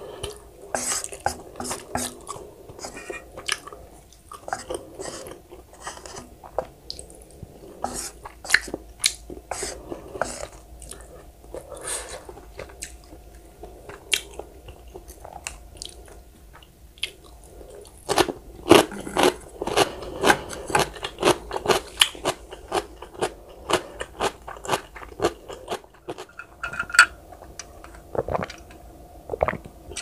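Close-miked eating sounds of a person chewing spicy stir-fried ramen noodles: many short wet smacks and crunches one after another, busiest about two-thirds of the way through.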